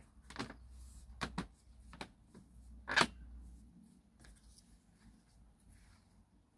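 A few scattered sharp clicks and knocks, the loudest about three seconds in, over a low rumble that stops about four seconds in.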